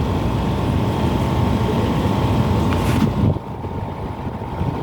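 Panasonic air conditioner outdoor unit running: a steady mechanical hum with a faint whine, under a low rumble of wind on the microphone. About three seconds in, the hiss drops away and the sound gets a little quieter.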